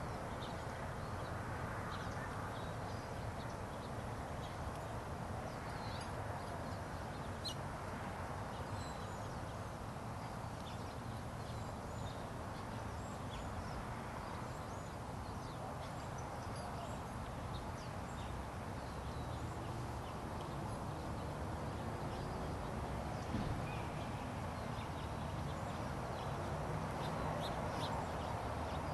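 Scattered short, high bird chirps and calls over a steady low background rumble.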